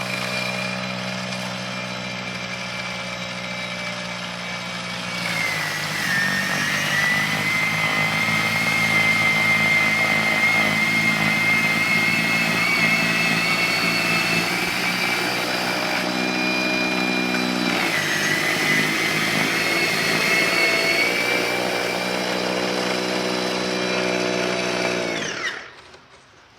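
EGO battery-powered two-stage snow blower running with a steady electric whine. Twice its pitch dips and climbs back, and near the end it winds down and stops.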